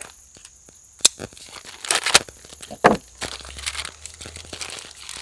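Plastic packaging crinkling and tearing as a new chainsaw chain is unwrapped, with a few sharp crackles.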